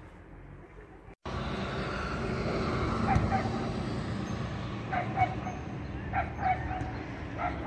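A dog yipping in short, high calls, about half a dozen, over steady background noise. The sound jumps louder after an abrupt cut about a second in.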